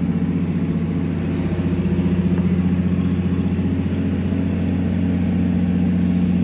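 A large machine running steadily: a continuous low hum with a fast, even pulsing beat.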